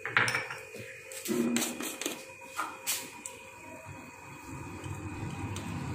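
Small glass bowls clinking and knocking as they are set down on a kitchen counter, a series of sharp taps in the first few seconds, then quieter handling.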